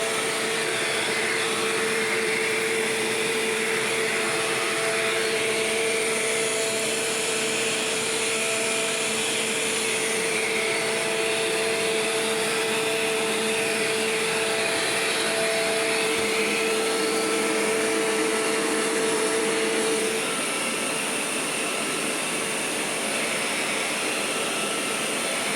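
Shark Rotator vacuum cleaner running steadily as it cleans the floor. A steady hum in its sound drops out about twenty seconds in, and the noise gets a little quieter.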